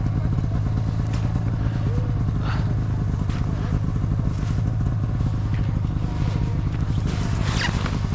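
Snowmobile engine running steadily at a constant speed.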